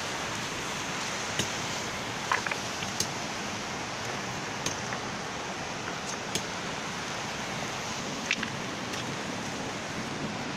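Steady rushing noise of the Torsa river in flood, with a few scattered sharp ticks over it.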